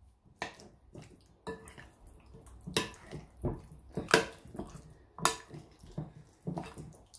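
A metal spoon stirring raw chicken drumsticks through a thick yogurt marinade in a glass bowl: irregular wet squelches and slaps, with a few sharper taps.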